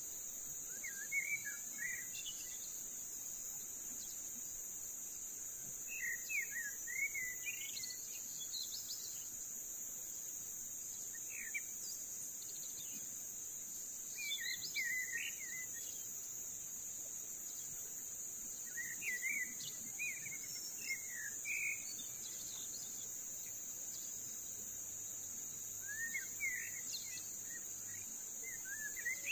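Steady high-pitched drone of insects, with a bird calling in short bouts of quick chirps about every four to six seconds.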